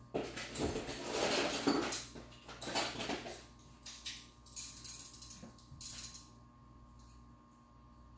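Metal hand tools clinking and rattling as a 17 mm socket and a wrench are picked out of a tool set, busiest in the first three seconds and stopping about six seconds in.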